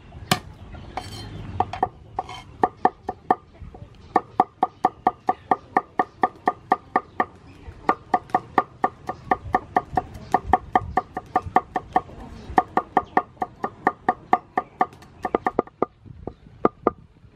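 A steel cleaver mincing garlic on a wooden cutting board: a few separate knocks at first, then fast, even chopping strokes at about five a second with a couple of short breaks.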